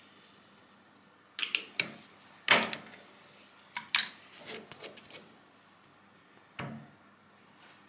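Scattered metal clinks and knocks of hand tools being handled at a milling machine, about seven in all, the loudest about two and a half seconds in.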